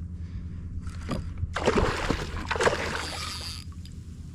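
Water sloshing and splashing against a fishing kayak, with a few short knocks, busiest from about a second and a half to three and a half seconds in.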